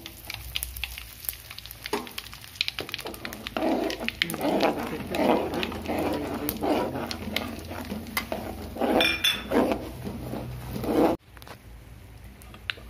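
Steel spoon stirring spices in hot oil in an aluminium kadai, scraping and clinking against the metal in rhythmic strokes about every half second, with scattered sharp clicks. The strokes stop abruptly near the end.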